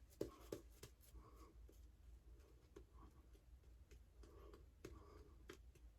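Faint, scratchy strokes of a Blackland Vector single-edge safety razor cutting through lathered stubble, with a few soft clicks between strokes.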